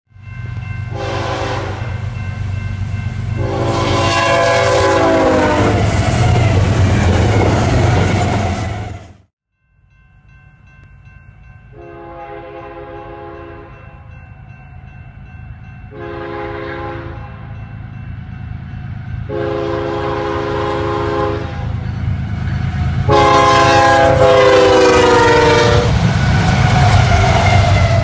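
Nathan Airchime K5HL five-chime locomotive horn sounding as freight trains pass. First comes a short blast, then a long one whose chord drops in pitch as the locomotive goes by, followed by the train's rumble. After a cut, four more blasts sound over a rising rumble, and the last one again drops in pitch as the locomotive passes.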